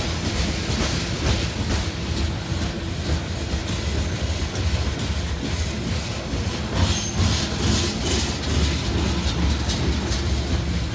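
Steel coal hopper cars of a freight train rolling past: a steady low rumble of wheels on rail with repeated clicks and clacks as the wheels cross rail joints.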